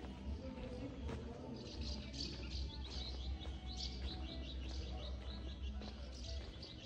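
Small birds chirping: a quick, continuing series of short high chirps that starts about a second and a half in, over a low steady background hum.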